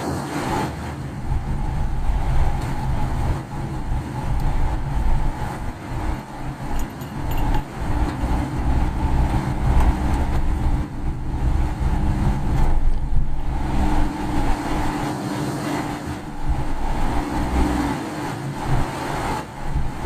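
Car driving on wet roads, heard from inside the cabin: steady rumble of tyres and engine, swelling and easing.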